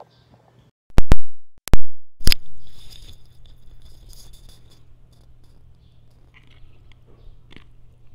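Recording phone and microphone being handled: four loud bumps close together, the loudest overloading, followed by a low steady hum and faint crackling.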